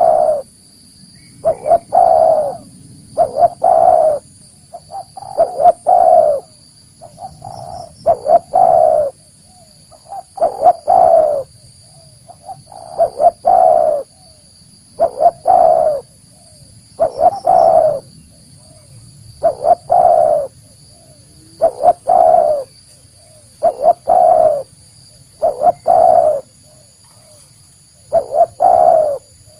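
Spotted dove (tekukur) cooing: a phrase of a few low coos repeated about every two seconds.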